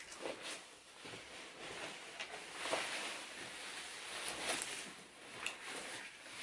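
Fabric rustling as a padded winter coat is pulled on and a cloth bag is handled, with a few light knocks and clicks scattered through it.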